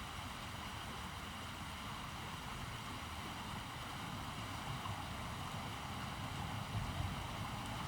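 Wind buffeting the microphone, an uneven low rumble under a steady rushing hiss.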